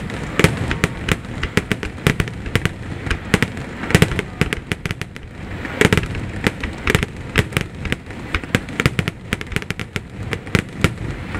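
Aerial firework shells bursting in quick succession: a dense, irregular string of sharp bangs and crackles with no let-up.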